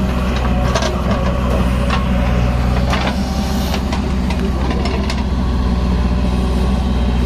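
Diesel engine of a JCB backhoe loader running steadily under working load. Several sharp knocks and clanks come in the first five seconds as the bucket tips soil into a tipper truck and then digs back into the soil heap.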